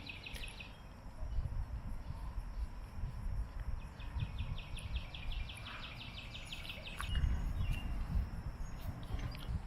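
Insect chirping in a rapid pulsed trill of about six or seven pulses a second, which stops just under a second in and comes back for a few seconds in the middle. Low rumbling of wind on the microphone rises twice.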